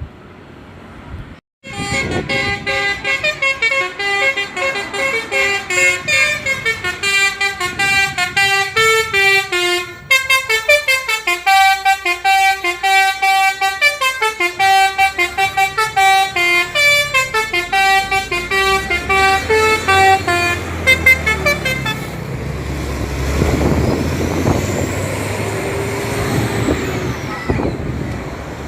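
A bus's 'telolet' musical horn playing a fast tune of short toots on several pitches, with a brief break about ten seconds in. After about twenty seconds the horn stops and the bus's engine is heard running.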